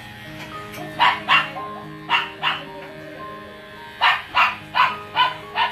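A dog barking: two pairs of short barks, then a quicker run of five barks near the end, over steady background music.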